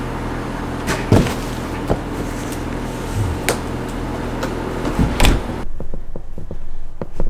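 A front door opening, with several sharp knocks and thuds over a steady low hum. Near the end the hum cuts off suddenly and a run of quick, soft knocks like footsteps follows.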